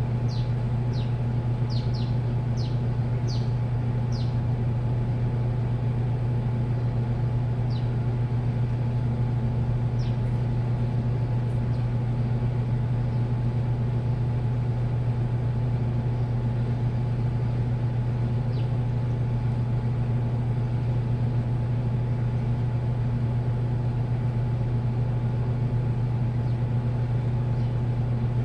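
Washing machine running with a steady, even hum. A few short, high, falling chirps sound over it, several in the first few seconds and a few more later.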